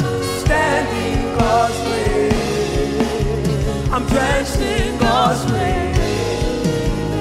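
Live gospel worship song: a woman's lead voice singing with vibrato over band accompaniment with drums.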